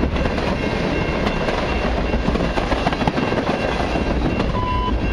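Cars of a long mixed freight and autorack train rolling past, steel wheels clicking over the rails in a steady rumble, with a faint high steady tone above it.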